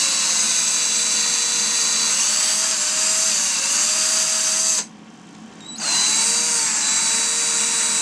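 Cordless drill with a 5/32-inch bit running, boring out a hole in a plastic inkjet ink cartridge; the motor whine shifts a little in pitch as the bit cuts. It stops about five seconds in and starts again about a second later.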